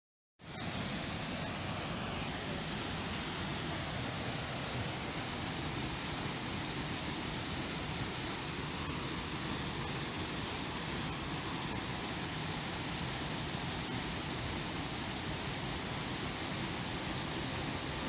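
Steady rush of a mountain waterfall, Urlătoarea, pouring down a rock face into a shallow pool; it cuts in abruptly just after the start and holds even throughout.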